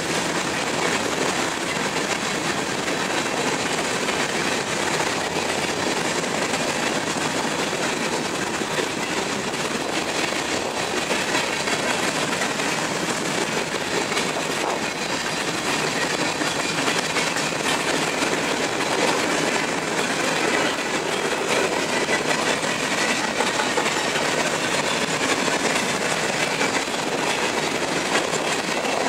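Empty covered hopper cars of a freight grain train rolling past at speed: a steady rumble and rattle of steel wheels on the rails.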